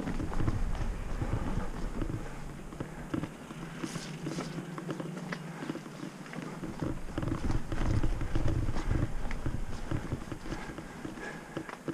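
Mountain bike rolling fast along a dirt singletrack: tyre noise on the dirt and the bike rattling with many small clicks over the rough ground, with a low rumble that fades a little after a couple of seconds and comes back strongly about seven seconds in.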